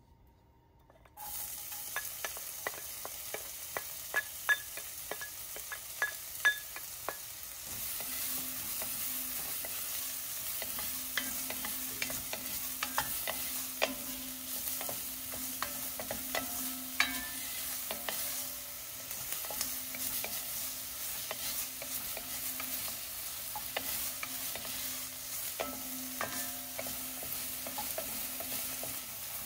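Chopped onions and garlic hit hot oil in an enamelled cast-iron pot about a second in and sizzle, while a wooden spatula stirs them with frequent clicks and scrapes against the pot. The sizzle grows louder about eight seconds in, and a steady low hum joins it.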